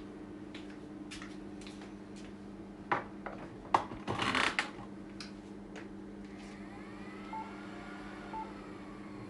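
Clicks and a short scraping rattle as equipment is handled, over a steady electrical hum. Two short faint beeps come later.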